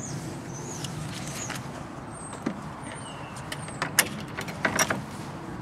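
Outdoor background with short high chirps now and then, and a few sharp clicks and rustles about four to five seconds in, the loudest near four seconds.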